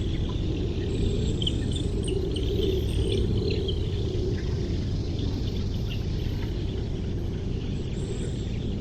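Insects, crickets by their sound, chirping in quick, irregular bursts over a steady low rumble.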